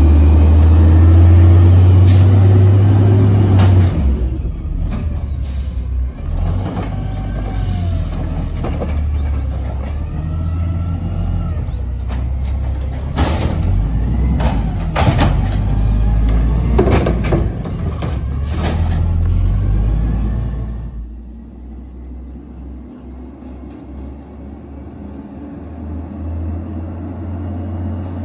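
American LaFrance Condor garbage truck's diesel engine running as the truck pulls away, with repeated sharp air-brake hisses and a few brief squeals. The engine sound drops off suddenly about 21 seconds in as the truck moves away, then slowly grows again near the end as it comes back.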